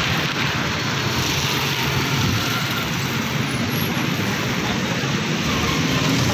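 Steady outdoor street background noise: a continuous even hiss with a low hum beneath, with no separate knocks or clinks standing out.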